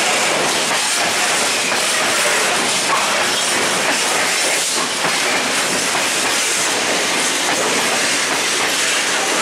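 Freight train of tank wagons rolling past close by: a steady, loud rumble and hiss of steel wheels on the rails, with scattered light knocks.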